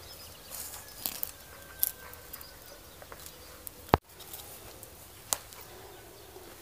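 Faint rustling and a few scattered clicks as cut grapevine branches are handled, with one sharp click about four seconds in.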